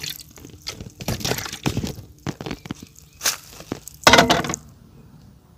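Hands squeezing and rinsing raw beef slices in a steel bowl of water: wet squelches, drips and small splashes, with a louder half-second rush about four seconds in.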